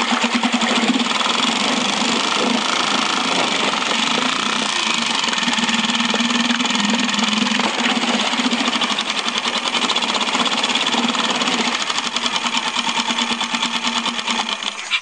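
Mercury 2.5 hp outboard engine running steadily with a fast, even beat on its test run after reassembly, then cutting off at the very end.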